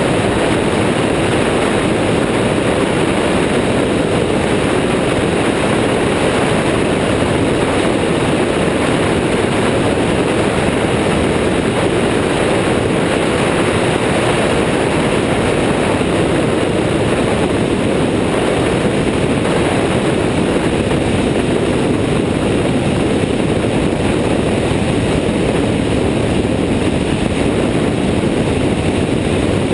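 Airborne XT Tundra ultralight trike in level flight: its engine and pusher propeller run steadily under heavy wind rush on a wing-mounted camera. It is an unchanging loud noise that does not rise or fall.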